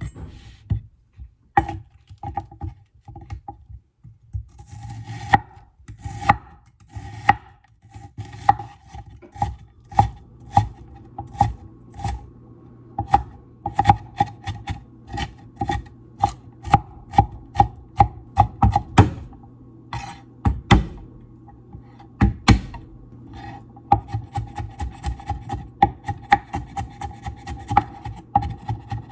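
Kitchen knife working on a wooden cutting board: a long run of quick cutting strokes with a few heavier thuds about two-thirds of the way through, over a faint steady hum.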